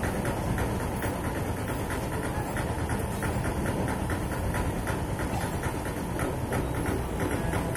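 A vehicle engine idling steadily, with a regular ticking running through the low rumble.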